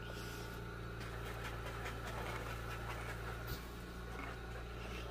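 A steady low hum in a quiet room, with faint irregular crackles and a small click about three and a half seconds in.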